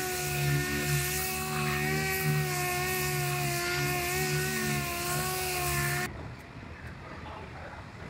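A handheld power tool running at high speed, a steady whine over hiss, which stops suddenly about six seconds in.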